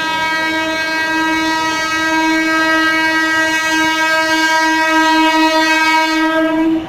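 Electric local train's horn sounding one long, steady blast on a single note for nearly seven seconds, cutting off suddenly near the end.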